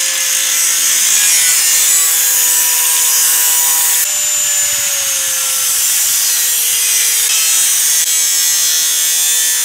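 Tesco-brand angle grinder cutting through the red painted metal shell of a central-heating expansion vessel: a loud, continuous hissing grind over a steady motor whine, the whine dipping slightly in pitch about halfway through as the disc bites.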